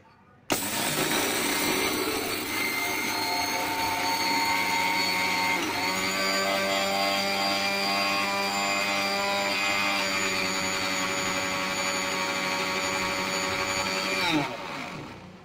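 Electric mixer grinder switched on and running, grinding mustard seeds coarsely in its steel jar. It starts abruptly, its pitch steps up slightly about six seconds in, and near the end it is switched off and the motor winds down.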